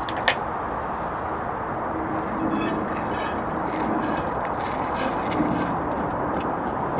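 Gas burner of a Trangia 25 camp stove hissing steadily on a low flame, with a sharp click about a quarter second in and light scraping and clinking of cookware a few seconds later.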